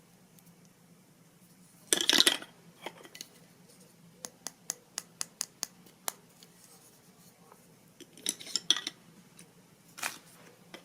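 Hard clicks and clatter of small objects being handled. There is a loud clatter about two seconds in, then a quick run of about ten sharp clicks, more clatter and a single knock near the end.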